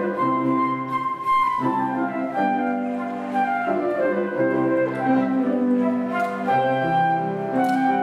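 Transverse flute playing a classical melody over grand piano accompaniment, with a held high note about a second in followed by a quick falling run.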